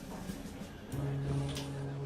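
Background music: a low, sustained note comes in about a second in and holds steady.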